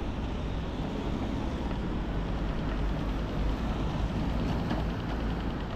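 Steady city street noise with a low rumble of passing traffic. In the last couple of seconds, a faint rapid ticking is heard.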